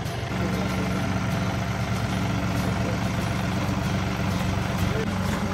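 John Deere compact tractor's diesel engine running steadily as the tractor drives forward, picking up slightly in level about a third of a second in.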